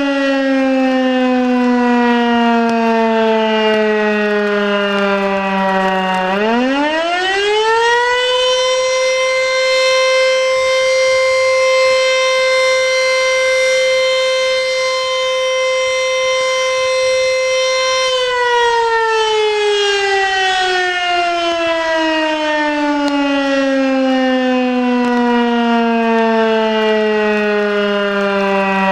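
Elektror S3 400 V electric motor siren sounding the fire alarm signal in a test: its pitch falls as the rotor coasts down, then about six seconds in it spins up quickly to a steady high wail held for about ten seconds, and then slowly winds down again.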